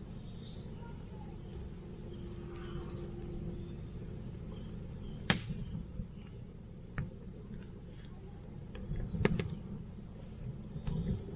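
Wood campfire burning with a steady low rush and several sharp pops and snaps from the wood, the loudest about five seconds in.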